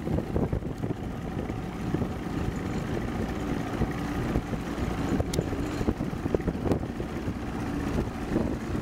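Outboard motor of a small Boston Whaler running steadily under way, with wind rumbling on the microphone.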